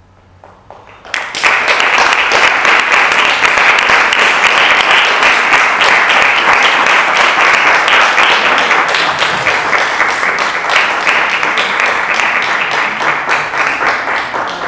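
Theatre audience applauding: clapping starts suddenly about a second in, stays dense and loud, and eases a little near the end.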